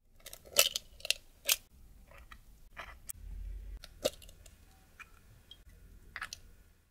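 An egg's shell cracking: several sharp taps in the first second and a half, the loudest about a second and a half in, then single cracks and crackles as the shell is pulled apart by hand to separate the white from the yolk.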